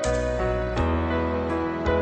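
Background music: slow, soft instrumental with piano or keyboard, held notes changing about every second.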